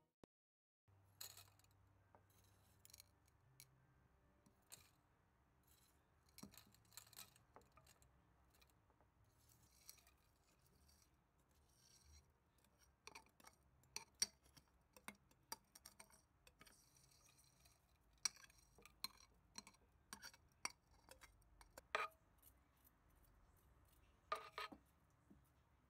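Faint, irregular clicks and taps of soil substrate being worked in a small glass cube tank: crumbs of potting soil dropping onto the glass, and long metal tweezers pressing the soil and touching the glass. The taps are a little louder and closer together in the second half.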